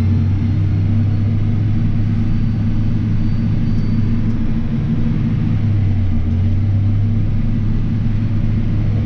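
Case IH tractor's diesel engine running steadily while the tractor cruises along a road, heard from inside the cab as an even low hum.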